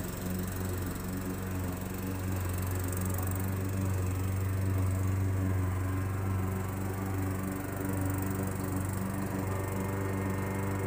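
Gasoline walk-behind lawn mower engine running steadily under mowing load.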